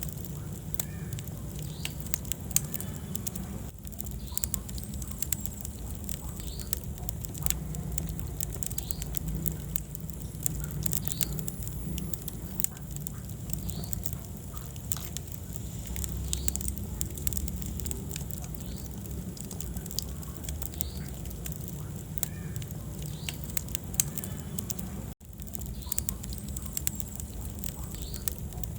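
Wood fire in a fireplace crackling, with frequent sharp pops and snaps over a steady low rumble of the flames. The sound cuts out for an instant about 25 seconds in.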